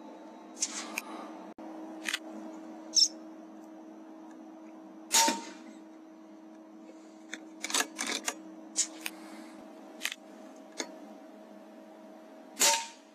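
Two shots from an AGT Uragan 2 PCP air rifle, about seven and a half seconds apart, each a sharp crack with a brief ring, with scattered smaller clicks between them. A steady electrical hum runs underneath.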